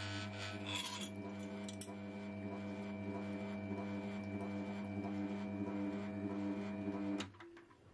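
Electric knife-sharpening machine running with a steady motor hum as its wheel spins. The steel blade grinds briefly against the wheel in the first second. The hum cuts off suddenly near the end.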